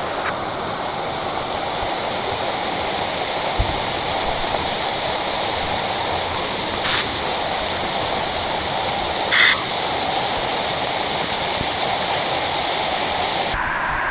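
Inambakan Falls pouring: a steady, even rush of falling water, with a few brief sounds over it, a low thump about four seconds in and short sharper sounds about seven and nine seconds in.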